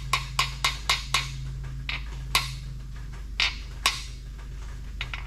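Small hammer tapping a DOD/AFM blocking plug down into the oil port in an LS V8 block's lifter valley: about five quick light taps in the first second or so, then four slower, spaced taps.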